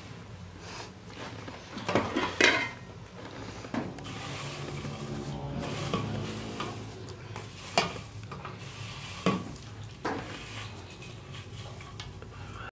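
Dried leafy greens being pushed and tipped by hand from a metal tray into an aluminium cooking pot: rustling of the dry leaves, with several sharp metal clinks of the tray against the pot, the loudest about two seconds in.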